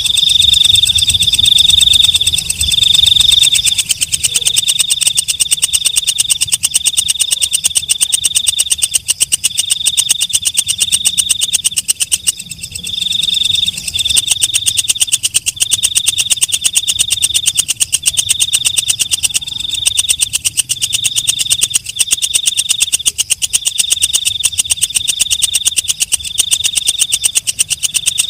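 Walang kecek katydid singing: a loud, high, rapid ticking buzz in bursts of about a second, repeated one after another, with a brief break about twelve seconds in.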